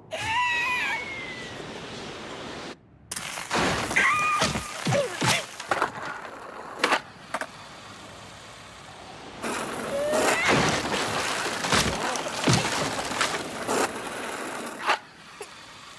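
Cartoon slapstick sound effects: a busy run of crashes, cracks and thuds over a rushing noise, with short gliding cartoon-character cries mixed in. It breaks off briefly about three seconds in.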